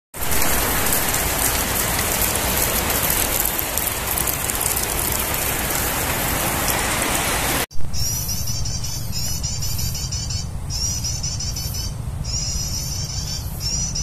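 Heavy rain pouring as a loud, even hiss, cut off abruptly about halfway through. It gives way to rapid, high-pitched chirping trills of prenjak (prinia) calls, repeating in short bursts with brief gaps over a low hum.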